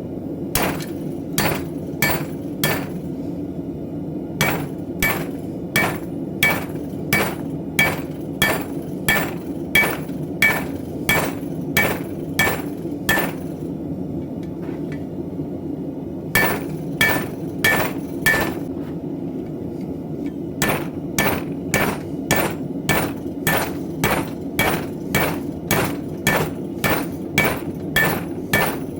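Hand hammer striking steel on an anvil, blows at about one and a half a second with a short metallic ring, in four runs broken by brief pauses, the longest pause about halfway through.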